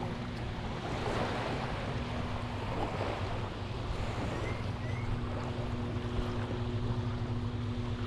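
Sea surf washing onto a sandy beach, with wind rushing over the microphone. A steady low hum runs underneath and fades out for a couple of seconds in the middle.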